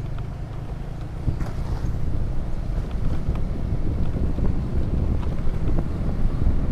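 Wind buffeting the microphone of a moving motorcycle, over a steady low rumble of engine and road noise.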